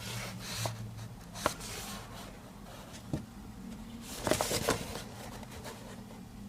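Handling noise of small objects: a few sharp clicks and a short burst of clicking and rustling a little past the middle, over a low hum that fades out after the first second.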